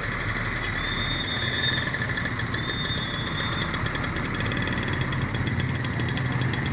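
A large bus's diesel engine running steadily at idle, with an even, fast clatter.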